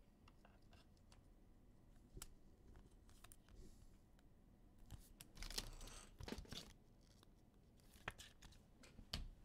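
Faint rustles and clicks of trading cards being handled: cards slid between the fingers and set down on a stack, with brief louder scuffs about halfway through and near the end.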